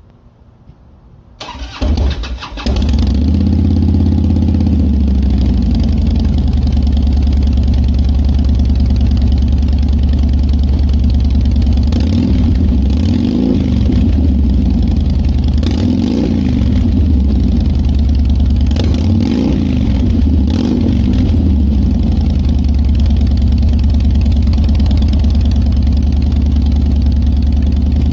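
A 2008 Harley-Davidson Fat Boy's Twin Cam 96 V-twin, breathing through Rush slash-cut slip-on mufflers with 2-inch baffles, cranks on the starter about a second and a half in. It catches and settles into a steady, deep rumbling idle. A few short throttle blips, each rising and falling in pitch, come in the second half.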